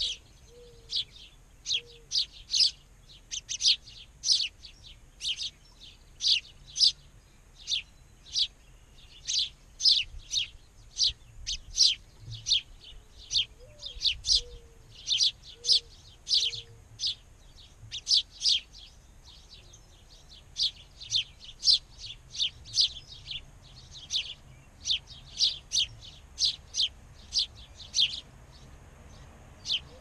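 House sparrows chirping: a steady run of short, repeated cheeps, two or three a second, without let-up.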